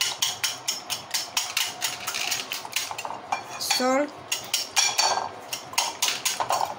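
Wire whisk beating eggs in a ceramic bowl: quick, rhythmic clicking of the wires against the bowl, several strokes a second.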